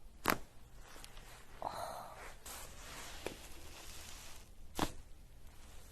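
A few sharp joint pops during a chiropractic adjustment of the back. The loudest comes just after the start and another near the end, with two smaller clicks between and some soft rubbing noise.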